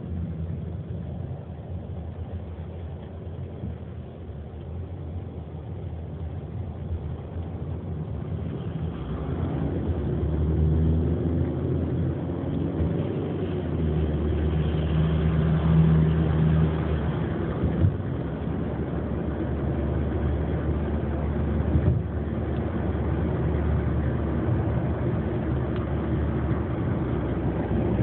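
Taxi's engine and tyre noise heard from inside the cabin while driving. The engine hum grows louder about a third of the way in and stays stronger afterwards.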